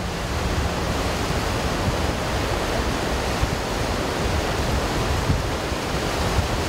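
Whitewater river rapids rushing steadily, a constant wash of water noise.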